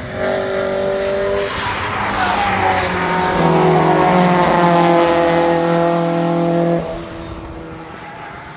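Car engine running hard on a race circuit, its pitch sliding and stepping several times, then dropping away sharply about seven seconds in.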